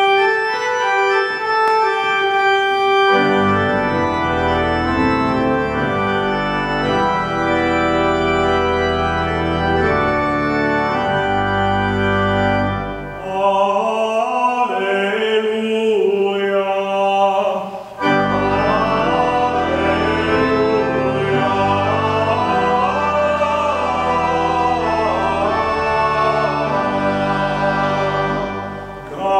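Organ playing sustained chords, with deep bass notes coming in a few seconds in. From about halfway, a singing voice with vibrato joins over it, and there are short breaks between phrases.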